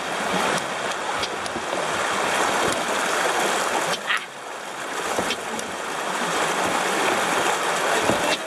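Rushing river water around a kayak running through moving water, a steady noisy wash with a few short knocks and splashes from the paddling.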